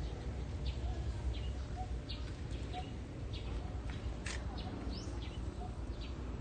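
Small birds chirping in short, high notes about every half second over a steady low rumble.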